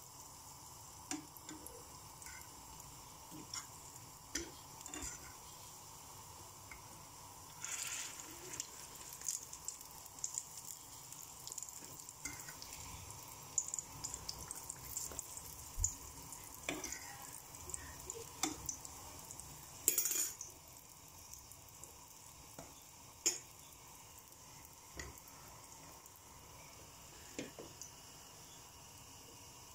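Egg-dipped bread frying in shallow oil in a pan, sizzling softly, with scattered clicks of a metal fork against the pan as the bread is turned. The sizzle flares up in short spells in the middle and thins out near the end.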